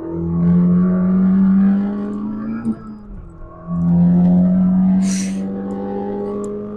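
Porsche sports car's engine pulling under acceleration, its pitch climbing steadily. About three seconds in, it drops back briefly for an upshift, then pulls again from a lower pitch. There is a short hiss about five seconds in.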